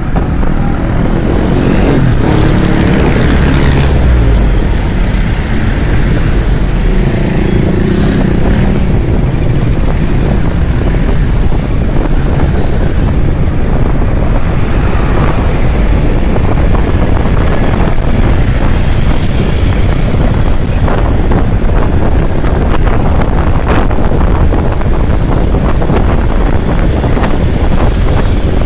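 Kawasaki Ninja 650's parallel-twin engine running under way, mixed with loud wind rush and road noise on the microphone.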